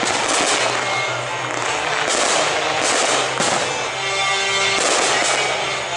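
Fireworks finale: many shells bursting in quick succession with crackling, over music playing steadily underneath.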